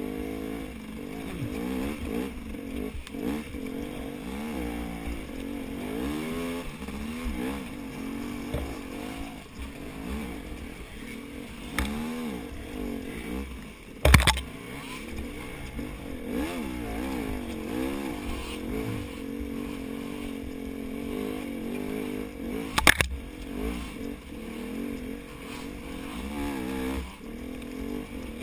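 KTM 250 XC two-stroke dirt bike engine revving up and down continually as the rider works the throttle through tight trail. There are two sharp knocks, one about halfway through and another about two-thirds of the way in.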